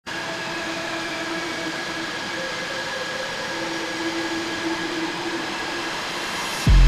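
Boeing EA-18G Growler's twin General Electric F414 turbofans running at taxi power: a steady jet rush with a faint, slightly wavering whine. Near the end a much louder low drone cuts in abruptly.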